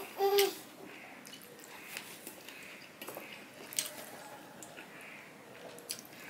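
Hand-eating sounds: fingers squishing rice and curry against a steel plate, with wet chewing, lip smacks and scattered soft clicks. A brief voiced sound just after the start is the loudest moment.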